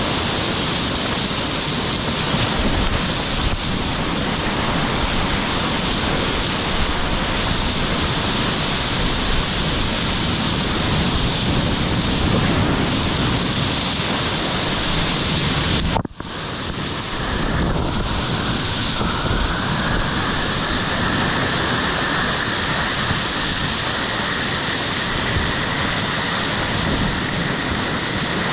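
Rushing whitewater of a Colorado River rapid, heard up close from a kayak, with water and wind buffeting the microphone. The sound breaks off abruptly about halfway through and resumes at the same level.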